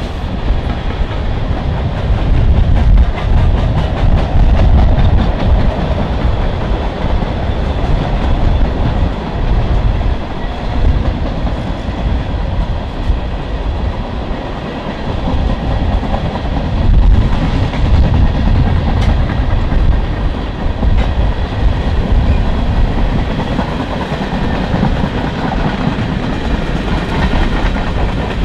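Canadian Pacific freight train's cars rolling past, boxcars then tank cars: a steady rumble of steel wheels on the rails.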